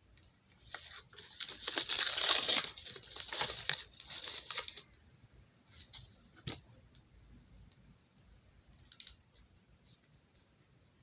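Plastic packaging being torn open by hand, a few seconds of ripping and crinkling, followed by a couple of small clicks and handling noises.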